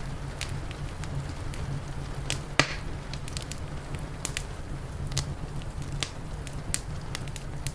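Wood fire crackling with irregular sharp snaps, one louder pop a little over two and a half seconds in, over a steady low rumble.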